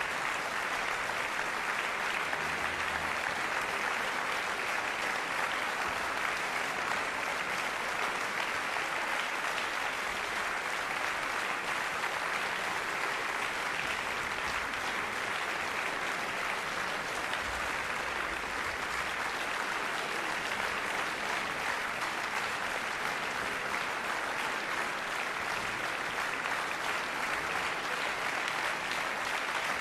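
Concert audience applauding steadily, a dense clapping with no let-up.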